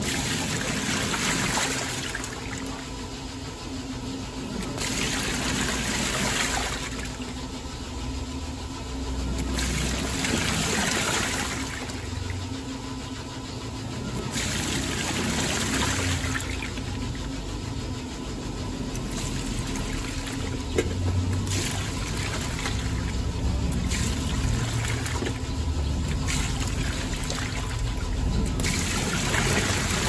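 Panasonic NA-FD10X1HRM top-load pulsator washing machine in its rinse cycle: water and clothes sloshing and swishing in the tub as the pulsator churns. The swishing comes in surges every few seconds, over a faint steady hum.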